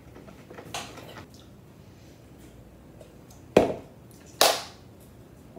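A plastic blender cup and its lid being handled: a light knock about a second in, then two louder sharp knocks or clatters less than a second apart, the first the loudest.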